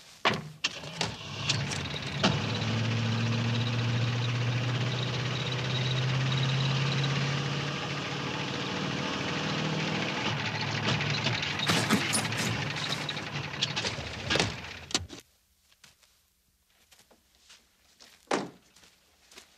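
An old car's engine running while driving, with steady road noise and a few sharp knocks. The engine noise cuts off about 15 seconds in, and a car door thunks a few seconds later.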